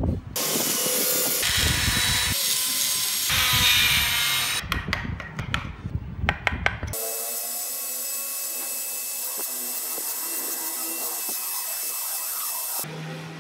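Wood carving in short edited clips: a hand carving tool scraping and cutting into small wooden wheels, with a few sharp clicks between about four and six seconds in. From about seven seconds a flexible-shaft rotary tool runs with a steady whine as its bit grinds tread grooves into a wooden wheel, until it cuts off near the end.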